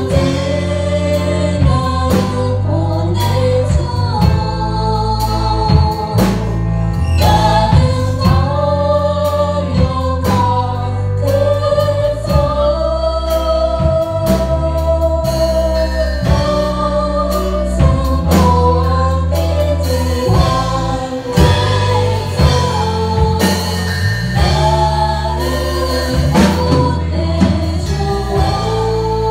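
Live worship band playing a song: several voices singing together over keyboard, acoustic guitar, a steady bass line and drums.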